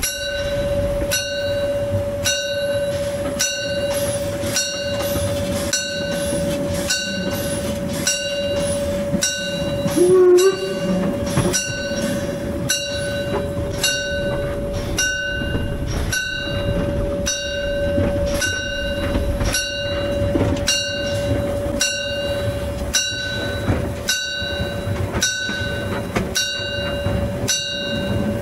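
Narrow-gauge steam locomotive under way, its bell ringing in regular strokes about once a second over a steady tone and the rumble of the train. About ten seconds in, a brief louder sound with a wavering pitch breaks in.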